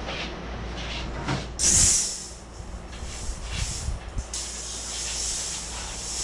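A sheet of expanded metal being dragged and scraping across a concrete floor: a short, loud hissing scrape about two seconds in, then a steadier hissing scrape from about halfway through, with a few light knocks.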